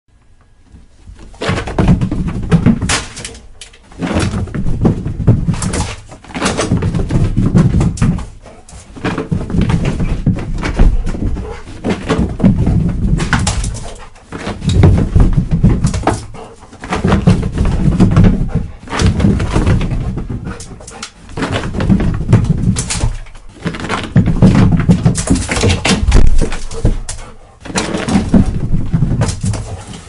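A dog running on stairs: quick patters of paw thuds and claw clicks on the steps. The runs come again and again, each lasting two to three seconds, with short pauses between them.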